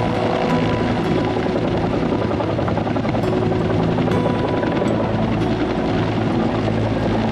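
Helicopter running steadily, a dense, loud whirr of engine and rotor with a constant hum held at several pitches.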